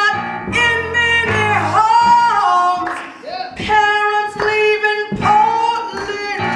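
Gospel singing with instrumental accompaniment: a voice holds and bends long notes over low bass notes.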